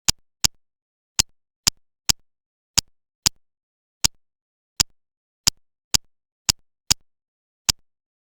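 Fourteen sharp, short clicks at uneven intervals, like plastic building bricks being snapped together one piece at a time.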